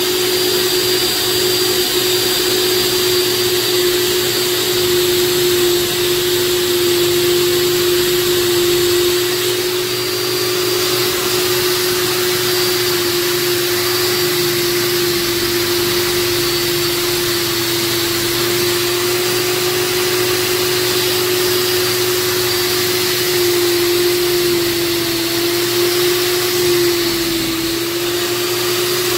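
Motor of a Cuisinart Smart Power Duet (BFP-703BC) food processor running steadily with a constant hum, its shredding disc grating zucchini pushed down the feed tube. The pitch sags slightly for a few seconds near the end as the pusher presses the zucchini down.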